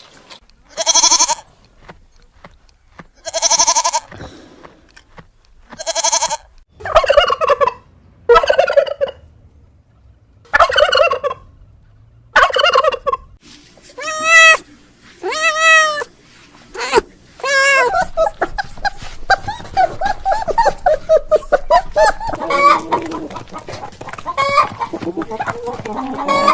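Domestic fowl calling: a dozen or so loud separate calls, then many birds calling over one another in a steady chatter for the last third.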